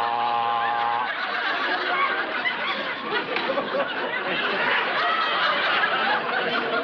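Studio audience laughter rolling on steadily, with a man's voice holding one low, steady 'ahh' for about the first second.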